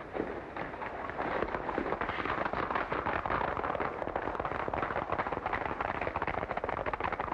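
Hoofbeats of several horses galloping together: a dense, fast clatter.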